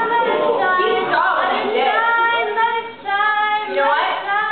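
Girls' voices singing without accompaniment, holding notes, with a brief break about three seconds in.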